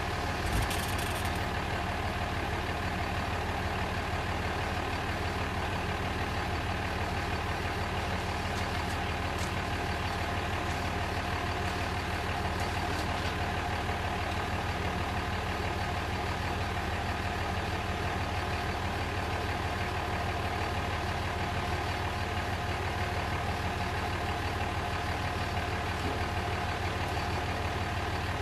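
Dodge pickup's diesel engine idling steadily, with a short knock about half a second in.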